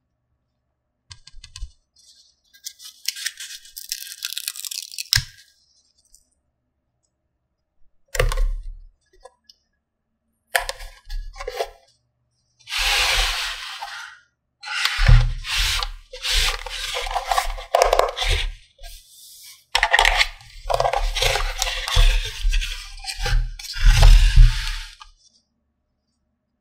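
Crinkling and tearing of plastic toy packaging as it is handled and unwrapped, in bursts with soft thumps of pieces being set down, broken by short silences.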